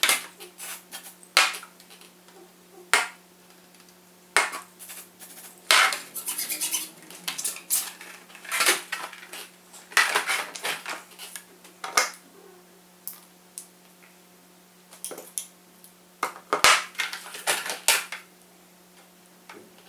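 Hands handling small hard plastic and metal parts while fitting a servo pushrod: irregular sharp clicks and taps with short scraping, rattling bursts. A steady low hum runs underneath.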